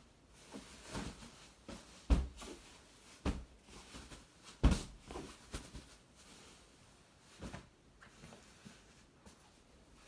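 Household handling sounds: a scattered series of knocks and clunks, the two loudest about two seconds and four and a half seconds in.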